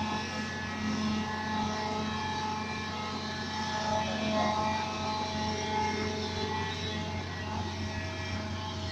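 Hydraulic excavator's diesel engine running steadily under load while the excavator digs.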